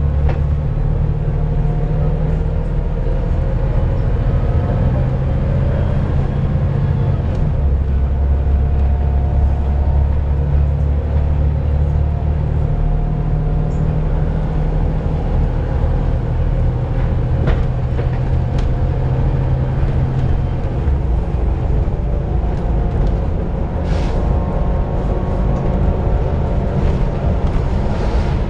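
Volvo B7TL double-decker bus's diesel engine running under way, a low drone whose pitch steps up and down every few seconds as engine speed changes.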